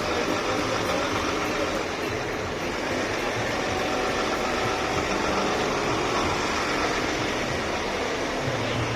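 Idling trucks in a street, a steady wash of engine and traffic noise with faint, held horn tones in it. A deeper, steady engine hum comes in near the end.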